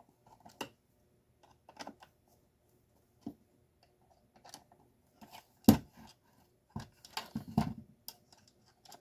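Scattered clicks and knocks of a Stanley garage door opener's hard plastic parts being handled and worked during disassembly, with one sharp knock a little past halfway and a short run of clattering soon after.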